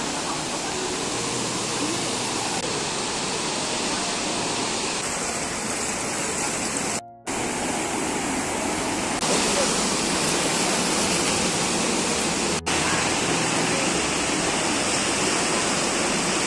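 Fast river water rushing steadily, the Lohit River at Parshuram Kund, with two brief breaks where the sound cuts out.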